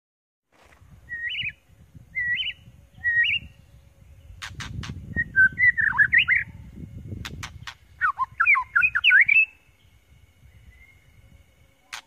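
White-rumped shama singing: three short rising whistled notes, then two longer runs of varied, swooping whistles, broken by groups of sharp clicks.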